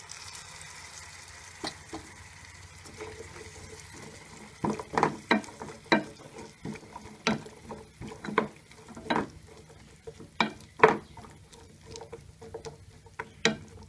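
A spoon stirring a liquid long-bean curry in a pot, clacking against the pot in sharp, irregular knocks from about four seconds in.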